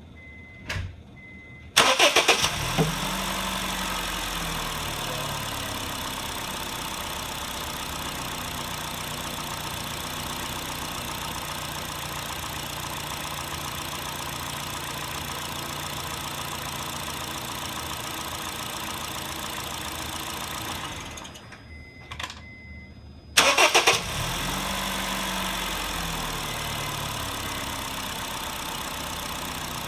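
2008 Honda Fit's 1.5-litre four-cylinder engine started twice: a short starter crank, catching with a quick rev flare, then settling to a steady idle. About 21 seconds in it is switched off and, after a few clicks and short beeps, restarted the same way. A few clicks and short beeps also come before the first start.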